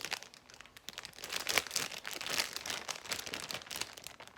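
Plastic zipper bag crinkling and rustling as it is handled and slime is put into it, a fast irregular crackle.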